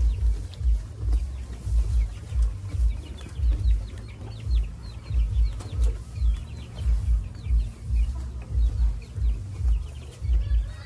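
Zebu calves munching fresh-cut grass close by: a steady chewing rhythm of about two bites a second, with crisp crunching of the stalks.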